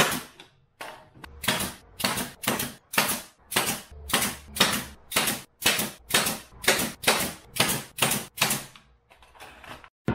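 Pneumatic brad nailer firing brad nails through quarter-inch plywood into a pine frame. It fires a rapid string of sharp shots, about three a second, that stops about nine seconds in.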